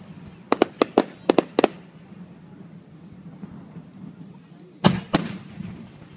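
Aerial firework shells bursting: a quick string of about seven sharp bangs in the first two seconds, then two louder bangs in quick succession near the end.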